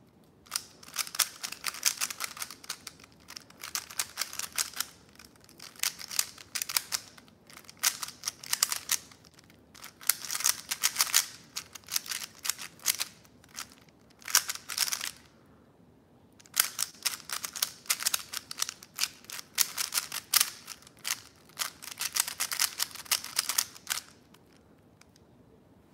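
Rubik's cube being turned rapidly by hand, a fast stream of plastic clicks and clacks as the layers snap round during a solve. It comes in two long runs with a pause of about a second near the middle, and stops shortly before the end.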